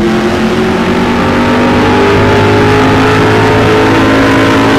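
Car engine running under load, its pitch climbing slowly and steadily.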